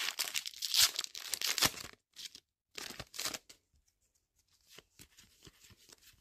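Foil Pokémon trading-card booster pack wrapper being torn open and crinkled, in crackling bursts through the first two seconds and again around three seconds in. After that come only faint light ticks of the cards being handled.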